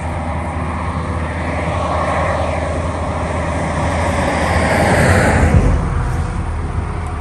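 A vehicle passing on the road. Its noise swells, peaks about five seconds in with a falling pitch, and fades away, over a steady low hum.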